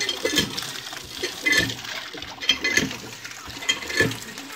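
Water pouring from a hand-pump spout into a plastic basket of tiny fish, splashing as a hand stirs and rinses them, in swells about once a second.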